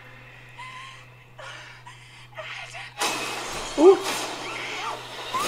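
Horror-film trailer audio playing from a phone. Faint sounds at first, then about three seconds in a loud, hissing stretch with a voice rising and falling in pitch, which cuts off suddenly.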